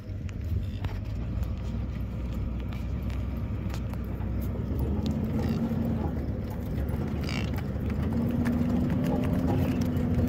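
A truck moving slowly over a dirt pasture track, with a steady low engine and tyre rumble. A humming tone from the engine comes in about five seconds in and again from about eight seconds on.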